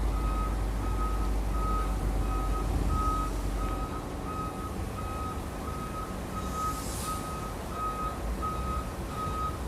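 Heavy truck's reversing alarm beeping steadily, about one and a half beeps a second, over a diesel engine's low rumble that fades about four seconds in.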